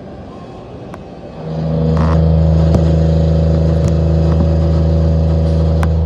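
Takamaz XT-8MY CNC lathe running: a steady low machine hum at a fixed pitch comes on about a second and a half in and holds, with a few sharp clicks over it.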